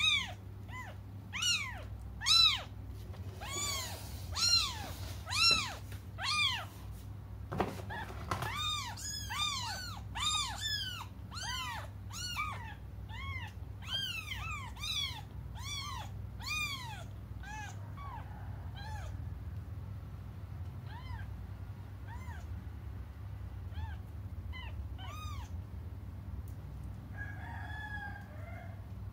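Newborn kittens mewing over and over in high, thin cries, at first about one a second and then several kittens overlapping. The cries thin out and grow fainter in the last third. They are the crying of kittens calling for their absent mother.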